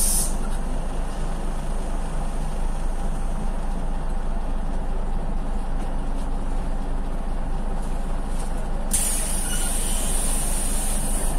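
Scania CL94UB city bus's diesel engine idling at a stop, heard from inside the passenger cabin as a steady low hum. A loud hiss of compressed air cuts off at the very start, and another steady air hiss from the bus's pneumatics starts about nine seconds in.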